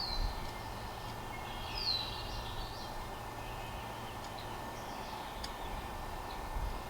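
Birds chirping in the background: short high calls that sweep downward, near the start and again about two seconds in, then fainter calls. A faint low steady hum stops about four and a half seconds in; no welding arc is struck.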